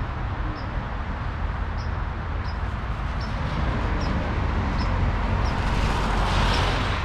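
Footsteps crunching on an ice-crusted layer of slushy snow at walking pace, about one crunch every two-thirds of a second, over a steady low rumble. A hiss swells and fades near the end.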